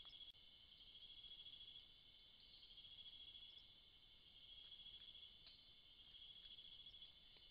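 Faint chorus of nocturnal insects in the forest: a continuous high-pitched trill that swells and fades every second or so.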